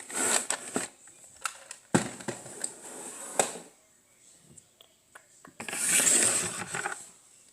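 Clear slime being squished and worked by hand, with bursts of squishing and sharp clicks: a sharp click about two seconds in and a longer squish about six seconds in.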